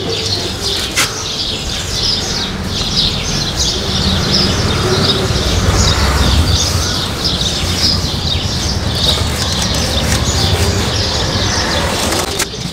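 Small birds chirping rapidly and continuously over a low rumble, while a rag rubs over a motorcycle's drive chain and rear sprocket.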